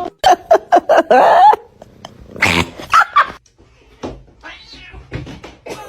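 Cat yowling and caterwauling in a series of short, loud outbursts, loudest in the first second and a half, with quieter calls near the end.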